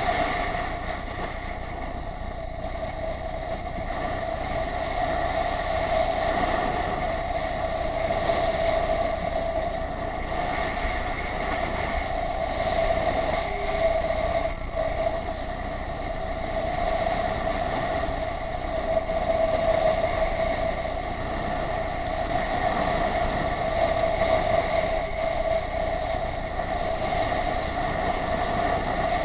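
Steady rushing drone on a skier's point-of-view camera during a downhill run: wind and skis sliding on snow, with a constant whine throughout.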